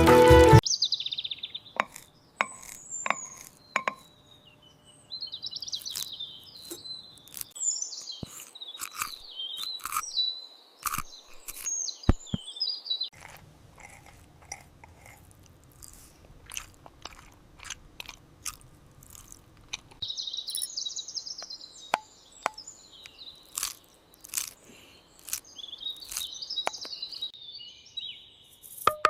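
Birds chirping in short spells, with scattered sharp clicks and taps in between.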